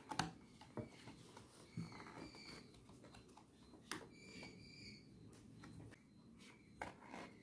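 Soft handling of a paperboard takeaway food box: a few light taps and paper rustles as its lid is opened and folded back.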